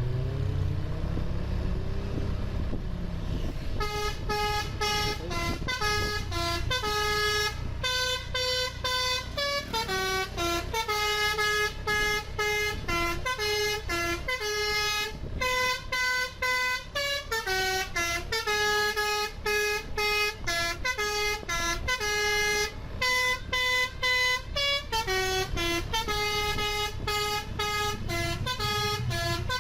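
A bus engine rises in pitch over a low rumble. From about four seconds in, a telolet basuri multi-trumpet air horn plays a fast tune of quick stepped notes, over and over, above the engine.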